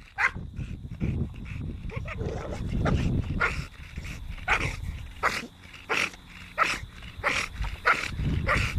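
American bully dog panting with its mouth open, short breathy huffs a little over one a second, with a low wind rumble on the microphone that grows near the end.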